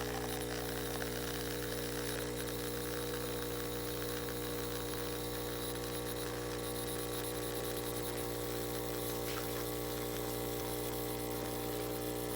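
CASABREWS 20-bar espresso machine's pump running with a steady hum while it pushes water through the coffee during brewing.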